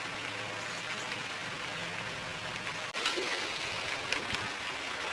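A steady outdoor hiss that cuts out briefly about three seconds in, followed by a few faint clicks.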